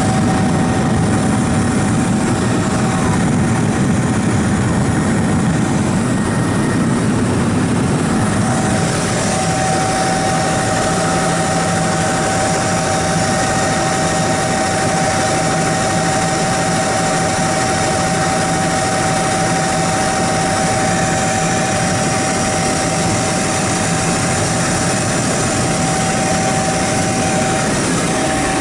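Helicopter in flight, heard from inside the cabin: a steady drone of engine and rotor with a steady high whine that grows stronger about nine seconds in.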